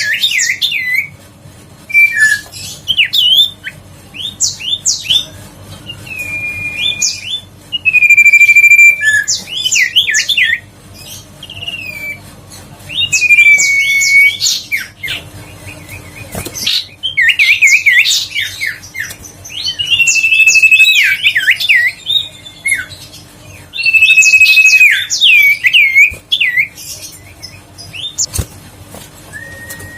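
Common iora (sirtu, cipoh) singing: phrase after phrase every two or three seconds, each a long held whistle followed by a quick run of rising and falling notes.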